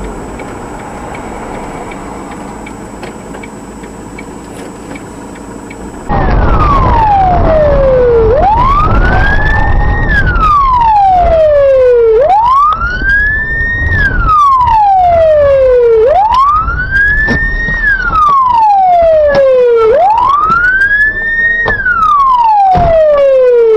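Vehicle road noise for about six seconds, then a sudden cut to a loud siren wailing: a tone that rises quickly and falls more slowly, repeating about every four seconds.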